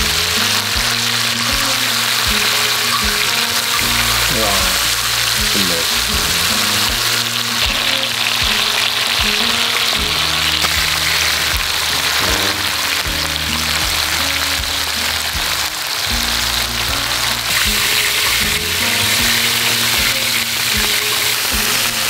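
Pork belly and mushrooms sizzling steadily in rendered fat on a cast-iron cauldron-lid griddle, with background music playing throughout.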